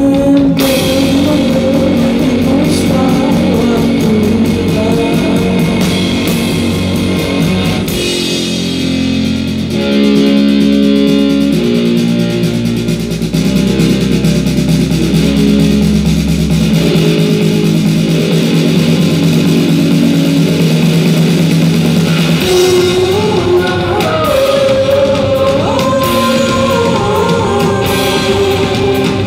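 Live band music built on an electric bass, which holds long low notes in the middle, with a woman singing near the end.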